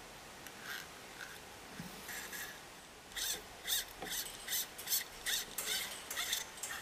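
Steel throttle cable sliding and scraping through the throttle twist-grip housing as it is pulled through by hand: faint handling at first, then from about halfway a quick run of short rasping strokes, two to three a second.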